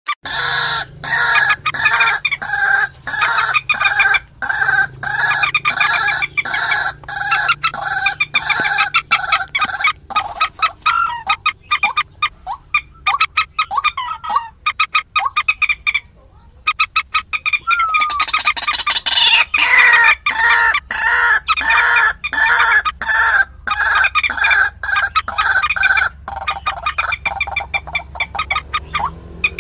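Common moorhen calls played as a bird-lure recording: a fast, loud run of repeated clucking notes, several a second, with a brief pause about halfway through.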